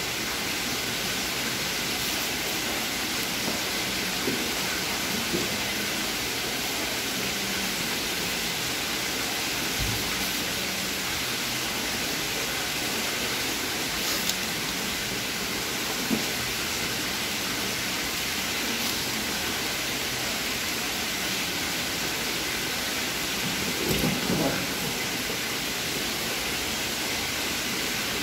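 A steady hissing noise with no change in level, broken by a few brief soft knocks, the loudest a short cluster about three-quarters of the way through.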